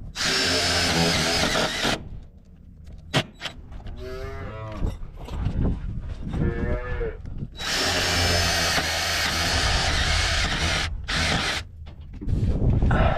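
Holstein calves bawling several times in the middle, with two long stretches of loud noise at the start and later on.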